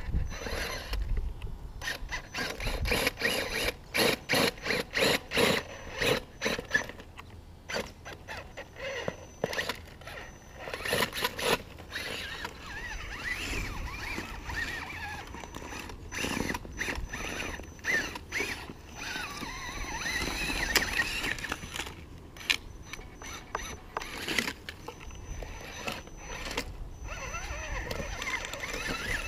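RC rock crawler with a brushless motor driving through its geared drivetrain, whining in short stop-start bursts and then longer stretches of varying pitch as it crawls over logs. Clacks and knocks come from the tires and chassis hitting the wood.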